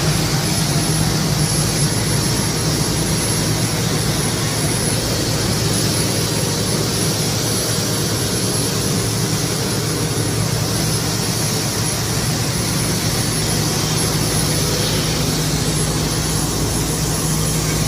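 Turbine aircraft engine running steadily at a constant pitch, with a thin high whine over a low hum.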